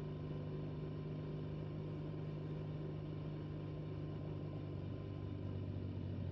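BMW motorcycle engine running at a steady cruising speed, a constant low drone heard muffled together with road and wind noise.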